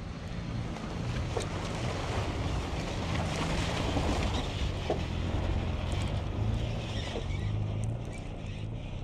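Pickup truck with a slide-in camper driving past slowly on snow: engine running with the hiss of tyres on snow. It grows louder as it passes close, then fades a little near the end.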